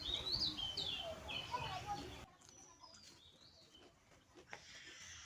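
Small birds chirping in short, high-pitched gliding calls, busiest in the first two seconds; the sound drops off abruptly about two seconds in, leaving only faint chirps and clicks.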